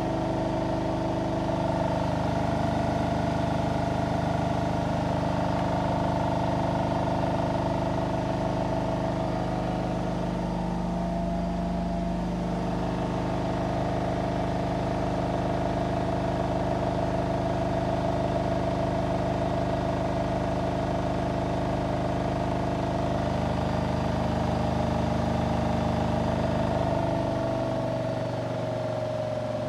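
Indesit Innex XWA81682 washing machine in its final spin at full speed, 1600 rpm: a steady motor and drum whine over a low hum. Near the end the whine drops slightly in pitch and gets a little quieter.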